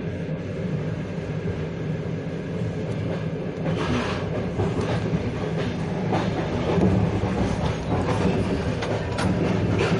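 Passenger train running at speed, heard from aboard: a steady rumble with the wheels clattering over the rail joints, the clatter growing louder from about four seconds in.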